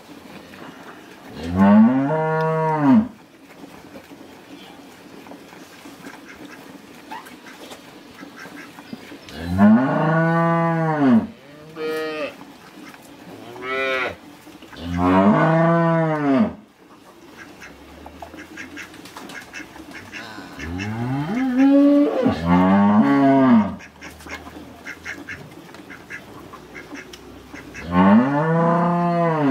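Dairy cattle mooing in the shed: a string of separate moos, each a second or two long, rising then falling in pitch, with pauses of several seconds between some of them.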